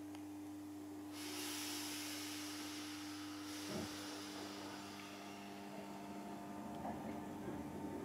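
Inside a Class 321 electric multiple unit standing and starting to move off: a steady electrical hum, a hiss of air lasting a couple of seconds, and a single knock. Near the end, faint motor tones begin to build as the train starts to pull away.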